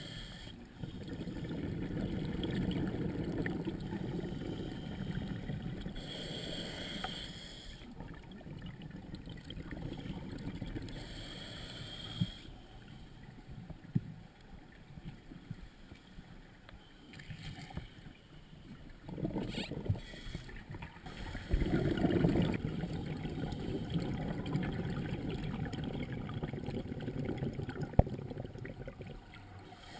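Open-circuit scuba regulator breathing underwater: short hissing inhales through the regulator alternate with longer low rumbles of exhaled bubbles, every several seconds, with a few sharp clicks.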